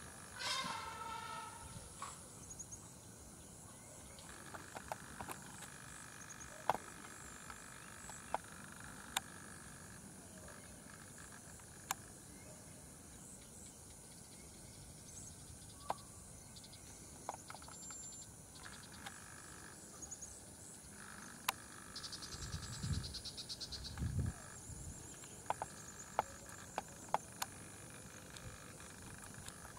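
Forest ambience at dusk: insects droning steadily at a high pitch, with scattered short bird chirps and sharp snaps. A loud falling animal call comes right at the start, and low rumbling sounds come twice near the end.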